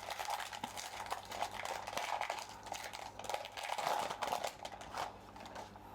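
Crinkling of a foil trading-card pack wrapper and cards being handled: a run of small, irregular rustles and clicks that quiets near the end.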